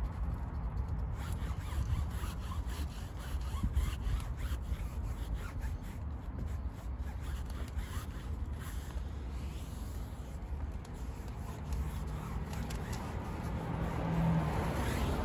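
Foam tyre-dressing applicator sponge rubbing tyre conditioner onto the sidewall of a Continental all-terrain tyre: a run of quick, uneven scuffing strokes over a low background rumble.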